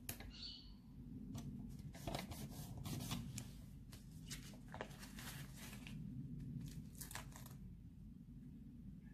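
Faint, scattered rustles and light taps of paper stickers being pressed down and handled on planner pages, over a low steady room hum.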